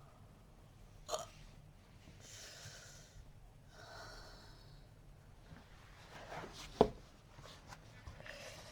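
A person hiccuping during a hiccup attack: two sharp hiccups, one about a second in and a louder one about five and a half seconds later, with breaths between them.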